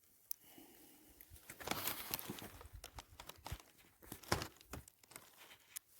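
Irregular rustling and crinkling with scattered light snaps and knocks, as kindling and firewood are handled to build a campfire.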